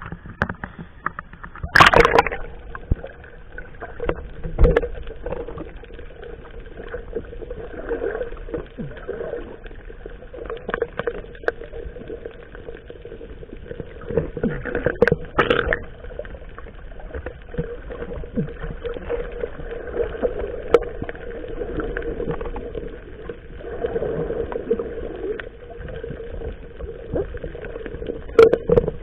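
Small boat engine running steadily, with several sharp knocks against the hull or gear now and then, the loudest about two seconds in and again near the end.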